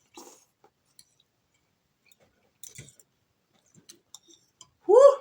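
Someone eating a spoonful of noodle soup: scattered soft clicks and quiet chewing. Near the end comes a loud rising "woo!" at the heat of the sriracha-laden soup.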